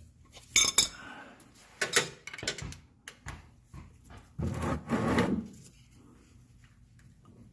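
Metal clicks and clanks of a 6 mm Allen wrench and hands working the oil drain plug out of a Polaris Ranger 570's engine, with a longer stretch of clattering about four and a half seconds in.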